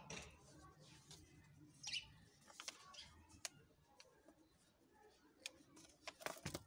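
Near silence with scattered faint light clicks and taps, a few more of them near the end, as a hand moves and sets down a cardboard-tube paper doll.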